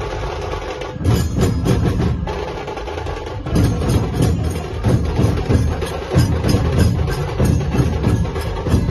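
Dhol-tasha pathak playing loudly: dhol barrel drums, tasha kettle drums and jhanj hand cymbals beating a fast, driving rhythm.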